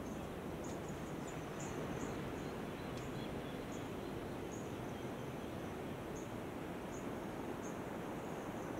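Outdoor ambience: a steady low hiss with short, high-pitched chirps from small animals in the vegetation, coming irregularly about once or twice a second.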